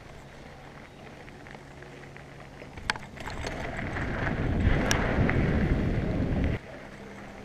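Wind rushing over a helmet-mounted action camera's microphone, mixed with mountain bike tyres rumbling on a dirt trail. It starts with a sharp click about three seconds in, builds, has a second click about five seconds in, and cuts off suddenly near the end.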